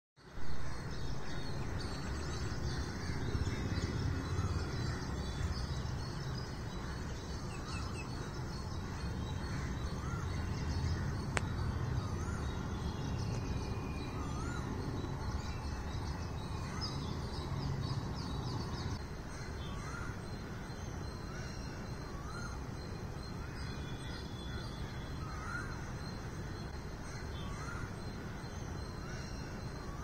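Many birds chirping and singing over a steady low hum of distant city traffic, with a short rising-and-falling call repeated every second or two in the second half. The traffic hum drops about 19 seconds in, and there is a single click about 11 seconds in.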